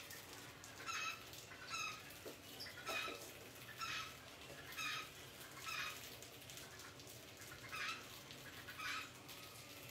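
Short, squeaky animal calls, each a quick chirp, repeating about once a second with a brief pause in the middle.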